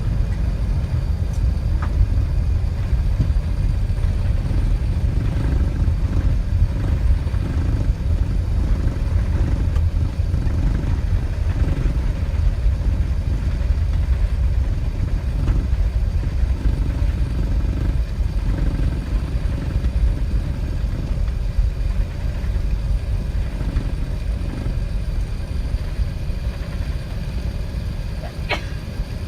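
Steady low rumble of an Airbus A380 heard from inside the passenger cabin, with a brief click near the end.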